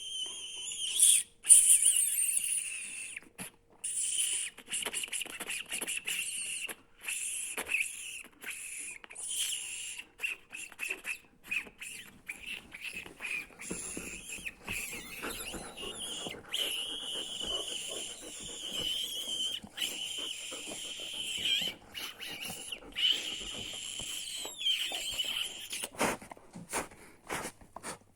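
A person making a strange high-pitched squeaking noise, held in stretches of a second or several and broken by short pauses, with the odd click between.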